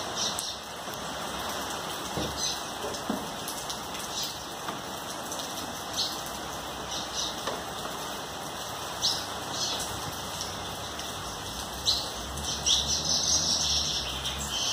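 Steady rain falling, with sharp drop taps now and then.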